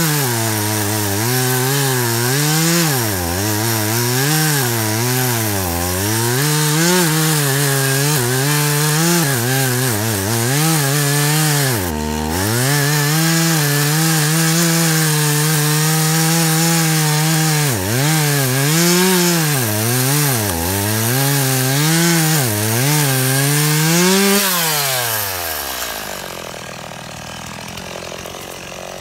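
Stihl 018 two-stroke chainsaw cutting through small logs. The engine pitch drops repeatedly as the chain loads in each cut and climbs back when it clears. Near the end the revs fall away and the engine winds down.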